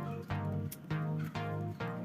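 Background music: plucked guitar notes at a steady pulse, about three notes a second.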